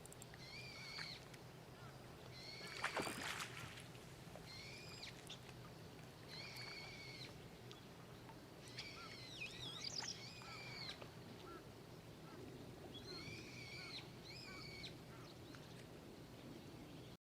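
A bird calling over and over, short pitched calls of about half a second every second or two, with a louder, harsher call about three seconds in.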